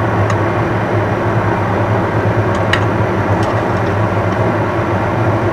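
Steady roar of a gas stove burner heating a wok of boiling water, with a low constant hum underneath. A few light clicks come as the wire strainer touches the pan, lifting out the cooked fish cakes.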